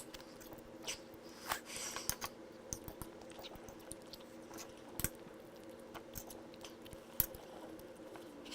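A person chewing mouthfuls of steak, with scattered faint clicks and two sharper taps, over a steady low hum.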